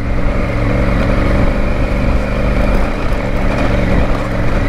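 Triumph Tiger adventure motorcycle's three-cylinder engine running steadily at low speed on a dirt track, with a noisy rush of wind and ride noise over the engine's low hum.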